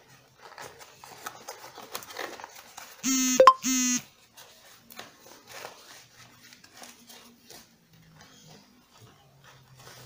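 Soft rustling and small clicks of hands working the nylon fabric of a scuba BCD while a dump-valve patch is fitted. About three seconds in comes a loud two-part tone, about a second in all, the loudest sound here.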